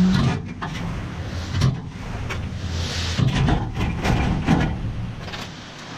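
Scattered knocks and clatter of scrap metal, a bed frame, being handled and loaded, over a low steady vehicle engine hum that fades out about three seconds in.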